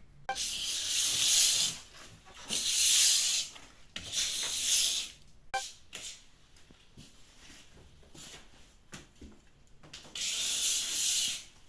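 A hand scraper being pushed across the wall to strip wallpaper that has been soaked with water, making a rough, hissing scrape with each stroke. There are three strokes about a second long each, a pause of several seconds, then another stroke near the end.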